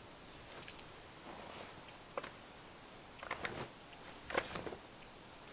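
Quiet forest ambience with a few soft rustles and clicks, one sharp click about two seconds in.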